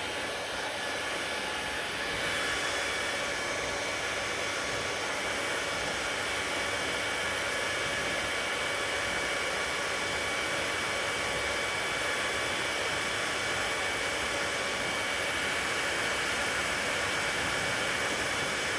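Handheld hair dryer running steadily, a continuous whirring blow with a faint motor whine; it gets a little louder about two seconds in and then holds steady.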